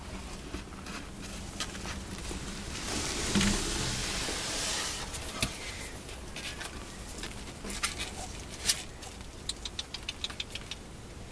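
A cat purring in a low steady rumble, with rustling against cardboard that swells about three to five seconds in, a few sharp clicks, and a quick run of small clicks near the end.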